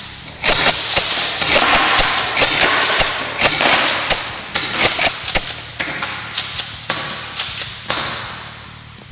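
Secutor Velites G-III green-gas pump-action airsoft shotgun fired again and again in its six-BBs-per-shot mode: a quick string of sharp pops and metallic clacks as the pump is worked between shots, echoing in a large hall.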